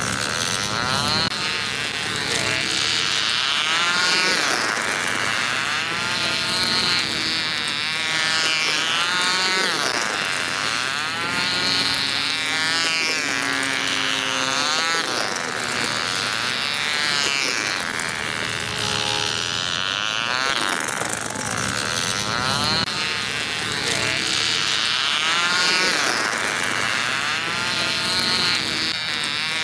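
Small model diesel engine of a 1950s-style rail racing car running at high revs, its whine rising and falling in pitch over and over as the car laps past on the track.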